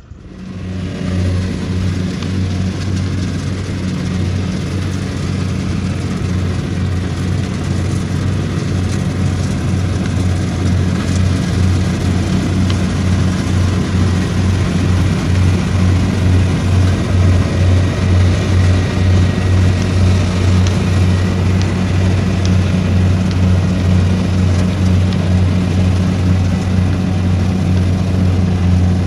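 Rice combine harvester working: its engine and threshing machinery make a steady, even hum with a regular pulsing. It comes in just after the start and grows slowly louder.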